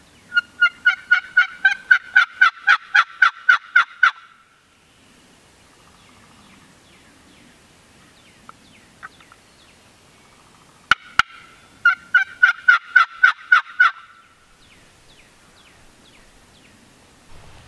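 Turkey yelping in two long, evenly paced runs of about four yelps a second, the first near the start and a shorter one about twelve seconds in. Two sharp clicks come just before the second run, and faint small-bird chirps are heard between the runs.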